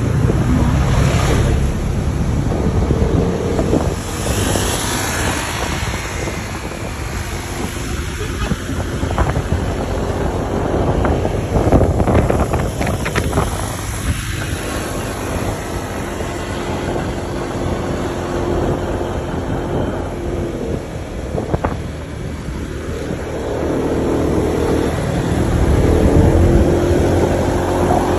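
Engine of a moving road vehicle running steadily, with wind rushing over the microphone and road noise; the engine note rises near the end as it speeds up.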